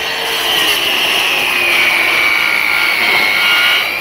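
Handheld electric circular saw cutting across a bangkirai hardwood plank. The motor's high whine sags in pitch under the load of the cut and climbs again near the end as the blade comes through.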